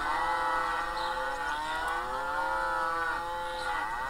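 Recorded cow-moo sound effect played again and again, so that several moos overlap, each with a pitch that bends and falls.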